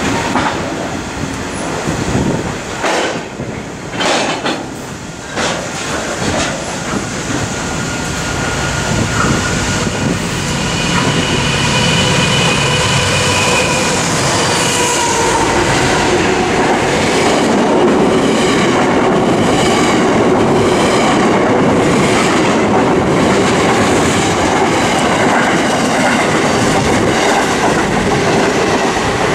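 Pacific National NR-class diesel-electric locomotives pass close by hauling a container freight train. The engines' sound builds as they go by, then the container wagons' wheels keep up a steady clatter over the rails. Wind buffets the microphone in the first few seconds.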